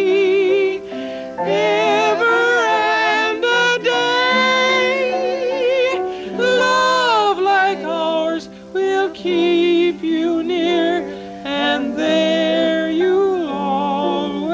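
Voices singing a slow, tender song in parts, with a wavering vibrato on the held notes, over a steady held accompaniment. Short pauses fall between the phrases.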